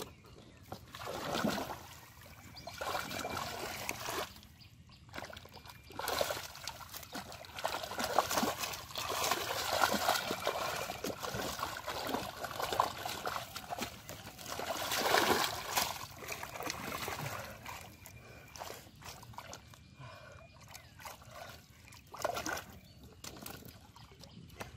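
Shallow muddy water sloshing and splashing in irregular bursts as hands grope through the mud for fish.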